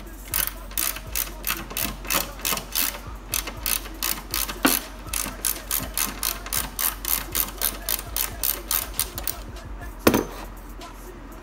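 Hand socket ratchet clicking in quick rhythmic runs, about three or four clicks a second, as it loosens the bolts holding a car's fuse box. A single louder knock comes near the end.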